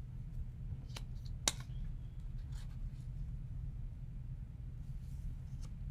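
Paper cut-outs being slid and placed by hand on a tabletop: faint paper rustles with two light taps about a second and a half in, over a steady low hum.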